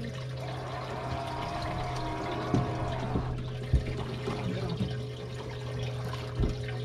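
Water splashing and lapping around a small fishing skiff as a hooked fish thrashes at the surface, over a steady low hum. A wavering whine runs for a few seconds early on, and there are three sharp knocks.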